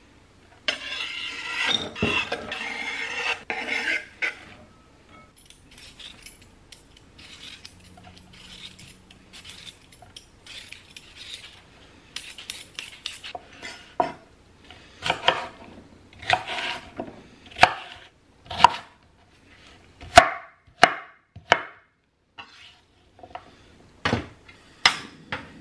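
Chef's knife chopping onion on a wooden cutting board, a quick run of strokes in the first few seconds. Later, a vegetable peeler scrapes russet potatoes in strokes about once a second, with a few knocks near the end.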